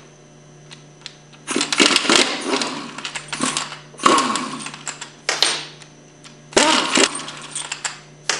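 Head bolts of a piston pump being backed out with a power driver fitted with a 1/4-inch hex bit. The motor runs in three bursts of a second or two each, with the pitch wavering under load.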